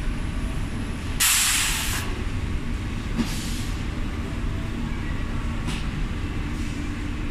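Pneumatic press of a high-frequency PVC tarpaulin welding machine letting out a loud hiss of air about a second in, then two weaker hisses, over the machine's steady hum.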